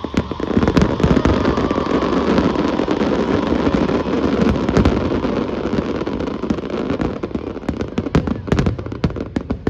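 Fireworks going off: a dense, continuous run of sharp cracks and pops that thins out near the end.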